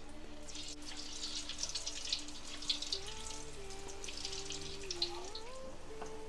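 Vegetable Manchurian batter balls deep-frying in hot oil in an iron kadai: a steady crackling sizzle as hand-shaped balls are dropped in one by one. Soft background music with a simple melody plays underneath.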